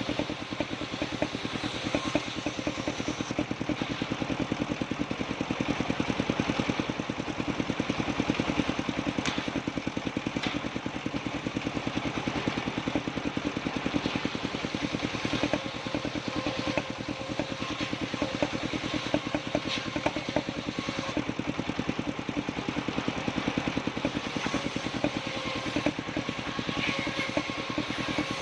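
Engine-driven circular sawmill running steadily, its motor giving a rapid, even pulse, with a few brief sharper knocks.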